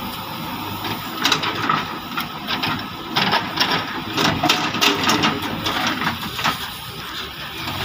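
Soil and clods pouring from a JCB 3DX backhoe's bucket into a tractor trailer, making a crackling, rattling patter of irregular clicks from about a second in until near the end. Underneath is the steady hum of the diesel backhoe engines running.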